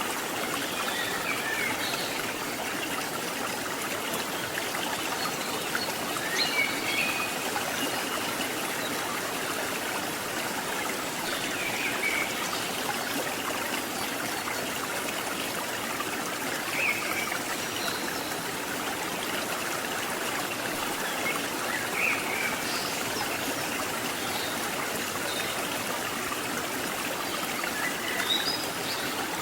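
River water rushing and trickling steadily, with a few brief, sharper sounds standing out about every five seconds.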